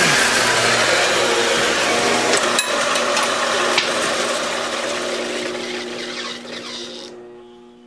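Horizontal metal-cutting band saw, driven by a treadmill DC motor, sawing through a 3/4-inch 1018 steel bar: a loud, steady rasping hiss with a few sharp ticks. The cutting noise fades away over the last couple of seconds as the cut ends, leaving a steady motor hum.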